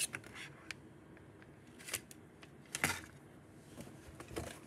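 Faint, scattered plastic clicks and rustles from handling small fidget toys, with a louder cluster of clicks about three seconds in.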